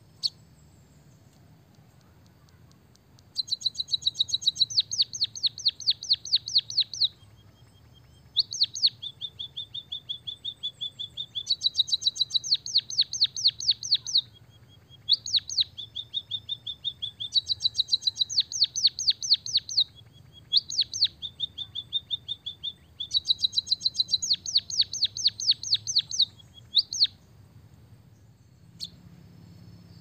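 White-headed munia singing canary-style song it has learned: several quick rolling trills of a few seconds each, switching between a higher and a slightly lower pitch, with a single sharp chip near the start and another near the end.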